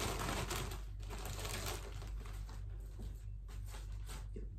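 A mail package's wrapping being torn open and crinkled by hand: dense crackling and rustling for about two seconds, then quieter rustling with a few scattered clicks.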